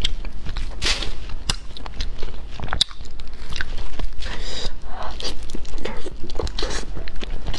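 Close-miked eating sounds of a person eating pieces of braised fish by hand: chewing, wet smacking and sucking, with many short clicks and crunches.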